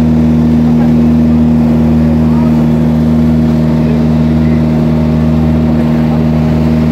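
Engine of a motorized bangka outrigger boat running at a steady cruising speed: a loud, constant drone, with water rushing along the hull.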